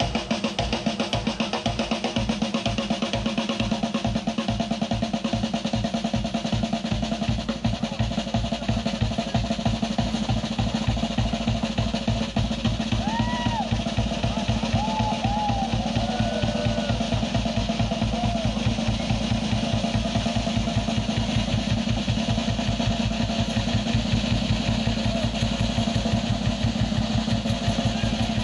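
Drum kit solo played live: a rapid, even run of bass-drum strokes with snare rolls and cymbals over it.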